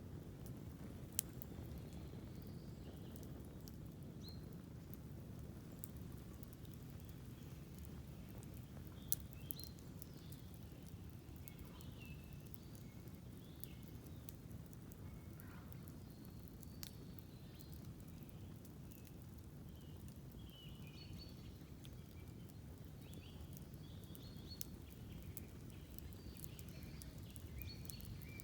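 Campfire burning with a low, steady rush and a few sharp crackles and pops, the loudest about nine seconds in. Small birds chirp in short, high phrases throughout, more often in the second half.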